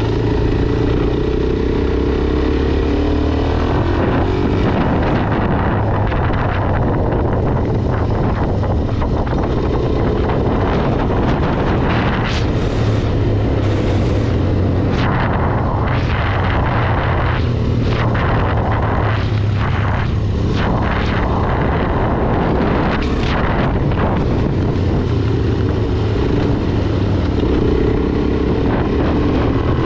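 Suzuki DR-Z400SM's single-cylinder four-stroke engine running under way while riding, with the engine note rising and falling near the start and again near the end as the revs change.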